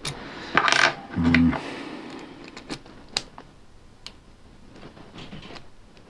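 Brass puzzle padlock and its key rattling and clicking as they are handled and worked in the hands: a short jingling rattle about a second in, then scattered light metal clicks.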